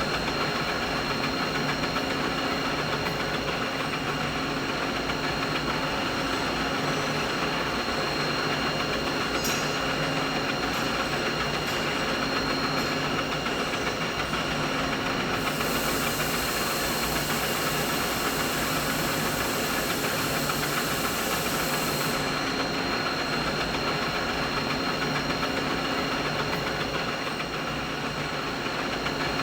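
Continuous mid-frequency machine noise: a steady mechanical drone with several steady tones running through it. About halfway through, a brighter high hiss joins it for some seven seconds, then drops away.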